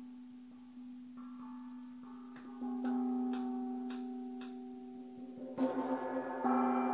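Small Chinese gong struck with a yarn mallet, ringing on with a steady hum and restruck several times. In the middle come five sharp, light taps about half a second apart, and near the end harder strikes swell the gong into a loud shimmering wash.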